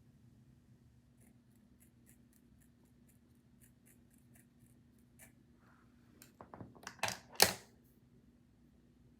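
A run of light, quick ticks, then a cluster of louder clicks and knocks about seven seconds in.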